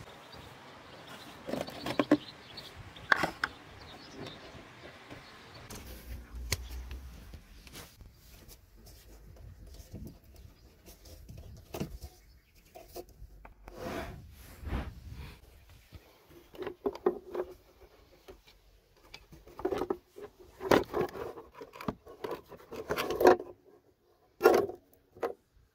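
Hands working the plastic air-intake parts of an Audi A8 D3 engine bay loose: scattered knocks, scrapes and rubbing of hard plastic, busiest near the end.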